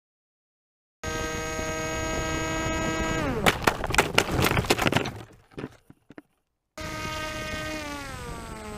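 Foam RC airplane's electric motor and propeller whining steadily, then dropping in pitch as the plane crashes: a quick run of hard knocks as it hits the ground, dying away. After a short gap the motor whine starts again and slides down in pitch.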